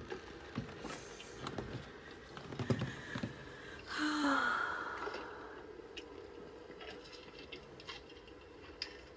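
Quiet room with faint rustles and clicks from a hand-held phone being moved close to the microphone, a short breathy hiss about four seconds in, and a faint steady hum.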